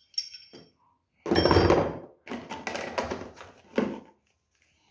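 Hammer drill accessories and packaging being handled during unpacking: knocks, clatter and rustle, loudest about a second in and going on in uneven bursts for a few seconds.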